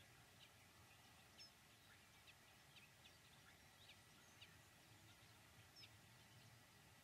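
Near silence outdoors, with faint, scattered short bird chirps, several each second.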